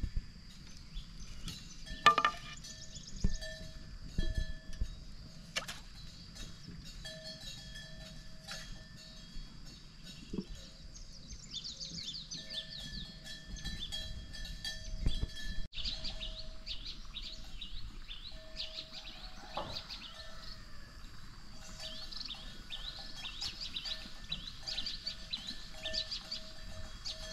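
Outdoor ambience of small animals calling: short steady notes repeating at several pitches, joined from about halfway by quick runs of high chirps. A few sharp clicks come in the first quarter.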